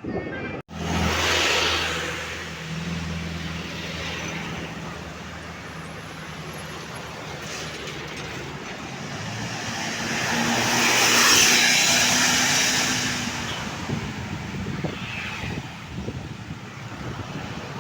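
Road vehicles passing close by: engine drone and tyre noise that swells to its loudest a little past the middle as one vehicle goes by, then fades.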